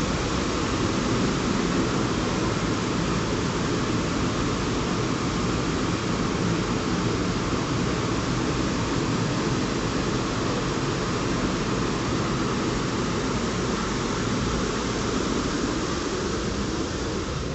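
Steady rushing of river water flowing beneath the bridge arches, an even noise with no breaks.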